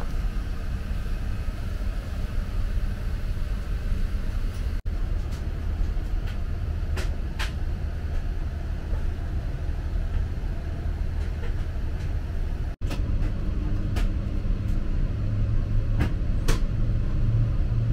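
Steady low rumble of a Boeing 777-300ER airliner's cabin on the ground, with a few faint clicks. The sound drops out very briefly twice, about five and thirteen seconds in, and a low hum sits under the rumble from then on.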